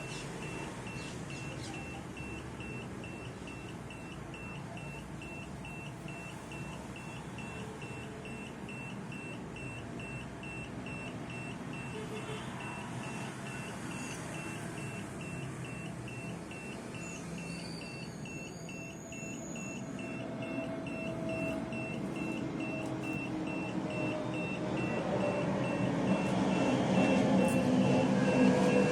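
Carbon monoxide meter's alarm beeping rapidly and steadily at one high pitch, the warning of a high CO level. Background noise underneath grows louder near the end.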